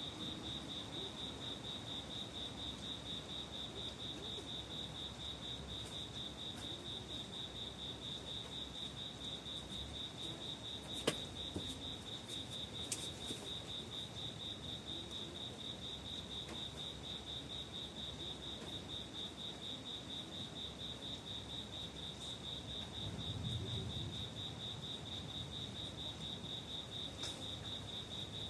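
Singing insects on a summer night: one steady, high, pulsing trill that never lets up. A single sharp click sounds about a third of the way in, and a brief low rumble comes near the end.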